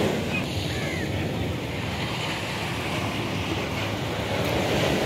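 Ocean surf washing on the shore, a steady rushing noise, with wind on the microphone.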